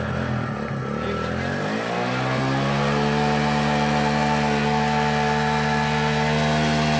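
A motorcycle engine revs up, its pitch rising over the first couple of seconds, then holds at steady high revs. Its rear tyre is pressed against the flywheel of a cement mixer's stationary engine, spinning that engine over to start it.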